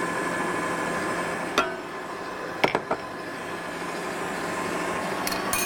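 Electric stand mixer running steadily, its motor humming as it kneads shortcrust tart dough with the water just added. A few light clicks sound over it, about one and a half to three seconds in.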